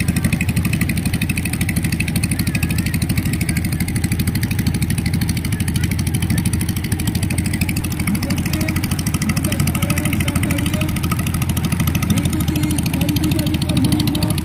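Small boat's outboard motor running steadily close by as the boat moves along at speed, with water rushing along the hull.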